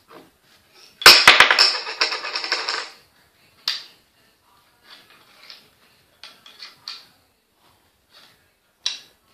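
Close handling noise at a worktable: a loud crackling rattle of many rapid clicks about a second in, lasting about two seconds, then scattered light clicks and taps and one sharper tap near the end.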